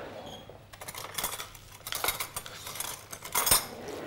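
A spoon scraping and clinking against a mixing bowl as a chickpea mixture is worked in it: a run of short scrapes and knocks, the loudest near the end.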